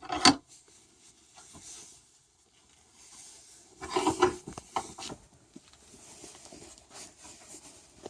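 Handling noise of an aluminium test piece being set in a bench vise and squeezed: a sharp knock just after the start, then scattered metal clicks and scrapes.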